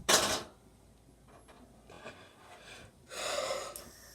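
A person's sharp, noisy breaths: a short loud burst at the start and a gasp about three seconds in, with quiet between.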